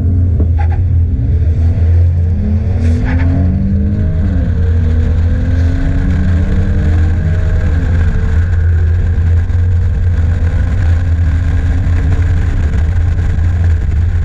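Heavy wind buffeting on a car-mounted camera, over the engines of a 2016 Ford Mustang EcoBoost and a 2017 Dodge Charger SXT running side by side at full throttle. Their pitch climbs and drops with gear changes in the first few seconds, then rises slowly and steadily.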